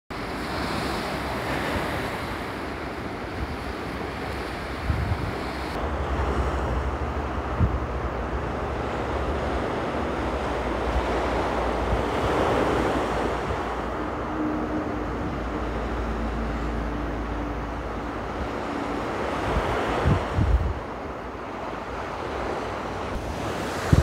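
Small sea waves breaking and washing up on a sandy shore, with wind buffeting the microphone as a low rumble.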